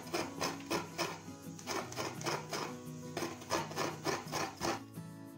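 A coconut half scraped by hand on a coconut grater in rhythmic rasping strokes, about two to three a second, with fresh shreds falling onto a steel plate. The scraping stops near the end, and soft background music plays underneath.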